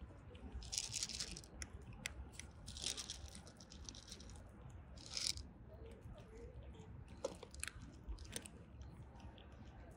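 Orange kittens and a cat crunching dry kibble: crisp crackling bursts about a second in, near three seconds and just after five seconds, with scattered single clicks of chewing between.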